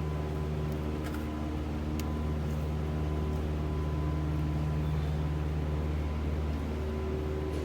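Steady low mechanical hum that runs without change, with a faint constant whine above it.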